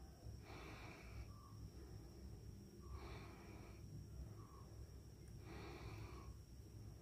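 Faint breathing, one soft breath about every two and a half seconds, over a low rumble and a thin steady high whine.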